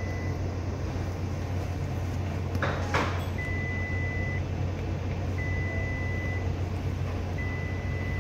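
Electronic alarm beeping, most likely from the newly installed radar workstation: a high single-tone beep about a second long, repeating every two seconds. Under it is a steady low hum of machinery, and there is a short swish about three seconds in.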